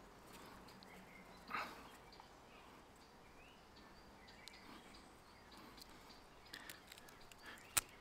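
Quiet handling rustle of a freshly twisted green twig, with one louder rustle about a second and a half in. Near the end come a few sharp clicks from a red Swiss Army knife as it is taken up and its blade set to the twig.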